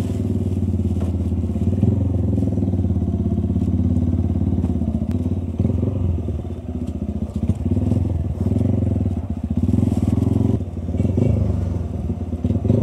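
Engine of a Cafe 150 motorcycle running as it is ridden. The note is steady for the first six seconds or so, then eases off and picks up again several times as the throttle is rolled off and on.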